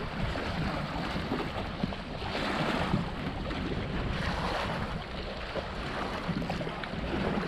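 Water rushing and splashing along the hulls of a Hobie Tandem Island sailing trimaran under way, with wind buffeting the microphone. The splashing swells up twice, about two and four seconds in.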